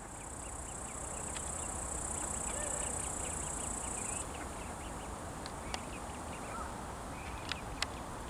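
An insect stridulating in a high, steady buzz that cuts off suddenly about four seconds in. Faint short chirps and a few light clicks near the end sit over a low steady rumble.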